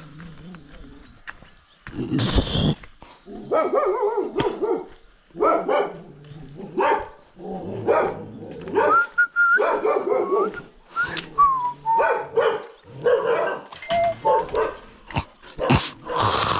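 A dog barking repeatedly, with short high whining yelps mixed in between the barks, starting about two seconds in.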